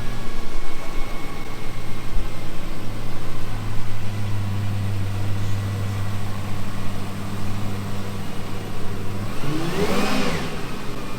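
Lexus LFA's 4.8-litre V10 idling steadily, then blipped once near the end with a quick rise and fall in revs.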